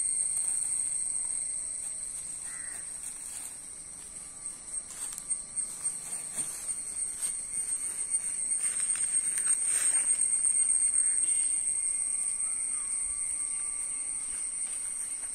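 Steady, high-pitched insect buzzing, which swells and pulses rapidly for several seconds in the middle.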